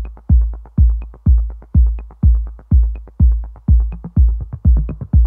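Electronic dance music: a steady four-on-the-floor kick drum at about two beats a second, with light hi-hat ticks between the beats.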